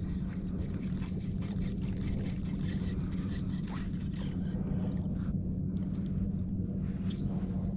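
Steady low motor hum, with a few light clicks in the second half.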